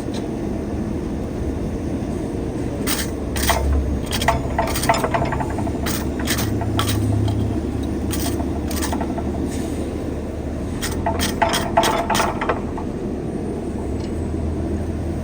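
Blacksmith's metalwork: irregular clusters of sharp metal strikes, a few at a time, over a steady rushing noise.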